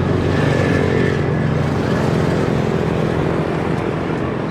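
A motor vehicle's engine passing close by, loudest about a second in and then easing off slightly.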